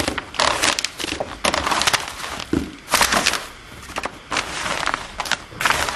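Aluminium foil tray crinkling and crackling irregularly as hands turn cut artichoke pieces over in flour inside it.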